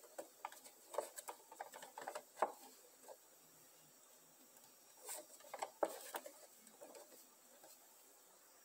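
Handling noise of a cardboard Funko Pop box with a clear plastic window being turned over in the hands: scattered taps, scrapes and crinkles, in a cluster at the start and again about five seconds in.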